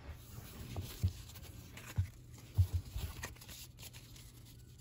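Trading cards being handled, gathered and set down on the table: light rustling with a few soft knocks about one, two and three seconds in.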